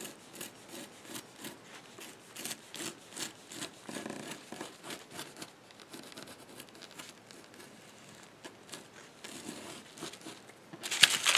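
Pencil pressed hard over a photo on carbon paper, scratching against the paper in many short tracing strokes. Near the end comes a louder, brief rustle of paper.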